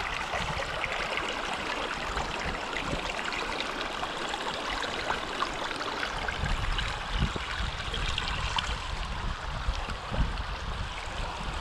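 Shallow creek water running and trickling over rocks in a steady rush, with a few soft low thumps now and then.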